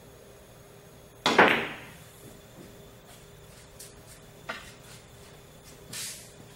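Pool shot: the cue tip strikes the cue ball with a sharp crack about a second in, followed by several faint clicks of balls against balls and cushions. A brief scuffing noise comes near the end.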